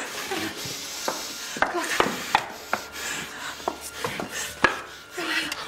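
Scattered light knocks, clinks and rubbing as a drinking glass is handled and people move about, about a dozen separate taps at irregular intervals.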